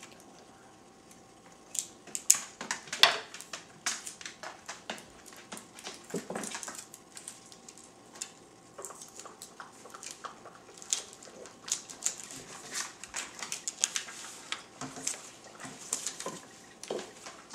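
Paper card being handled, folded and pressed flat on a wooden table: irregular rustling and crinkling with light clicks and taps, starting about two seconds in.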